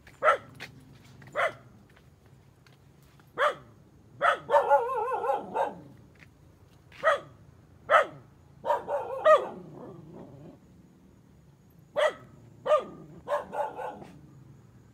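A dog barking in short single barks a second or a few seconds apart, with three longer, wavering drawn-out calls between them.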